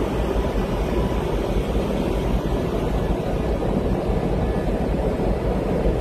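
Steady low rumble and rushing noise aboard a moving boat, from its running engine and the wind over the microphone.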